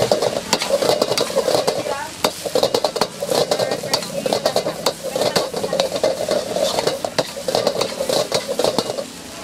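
Fried rice being stir-fried in a hot wok: a metal spatula scrapes and clanks rapidly against the pan in repeated bouts over the sizzle of the frying rice. The clanking stops near the end.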